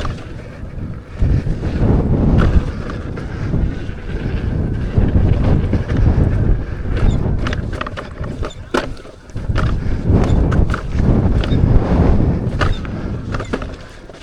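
Wind buffeting the microphone of a rider moving fast down an off-road trail on an electric unicycle, a loud uneven rumble that swells and eases, with scattered sharp clicks and knocks from the rough ground.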